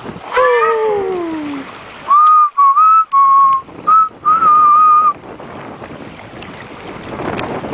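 A person whistling loudly: a run of about six short notes at nearly the same pitch, after a brief sliding cry that falls in pitch just before.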